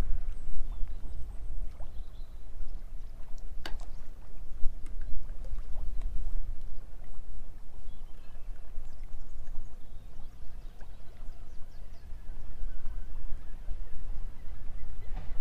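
Wind buffeting the microphone in a low, uneven rumble, over small waves lapping and splashing against a floating jetty.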